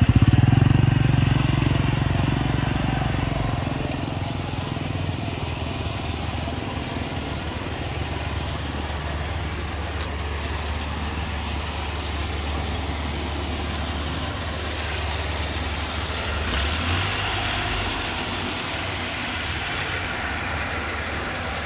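Homemade rice combine harvester engine running with a steady low drone. It is loudest at the start, fades over the first few seconds, then holds even.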